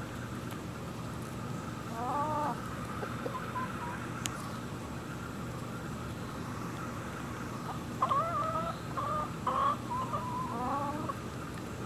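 Chickens calling as they crowd in to be hand-fed: one short call about two seconds in, then a run of calls from about eight to eleven seconds. A single sharp click comes near four seconds, over a steady low hum.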